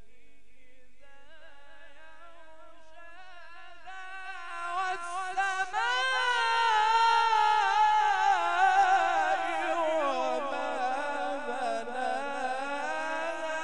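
A man reciting the Quran in the melodic tajweed style, drawing out one long ornamented phrase with a quivering pitch. It starts soft, swells and climbs to a loud, high peak about six seconds in, then sinks lower in pitch toward the end.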